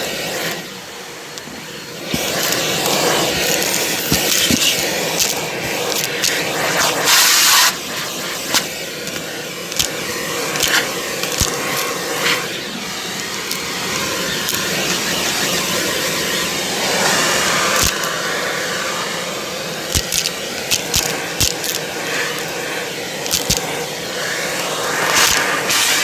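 Shark vacuum cleaner running steadily with its crevice tool on carpet, with frequent sharp clicks and rattles as paperclips, washers and other small debris are sucked up. The motor sound dips briefly near the start and there is a short louder rush of air about seven seconds in.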